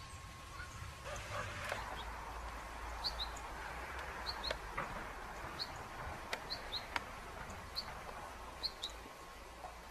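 Small birds chirping: short high chirps, often in quick pairs, about once a second over a faint hiss, with a few sharp clicks.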